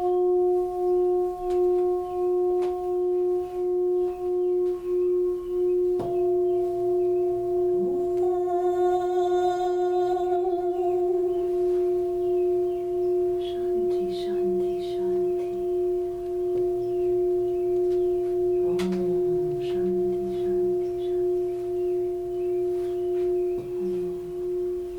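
Singing bowl ringing with one sustained, wavering tone, struck again about six seconds in. Brief higher ringing tones sound for a few seconds after the strike, and short low hums come and go later.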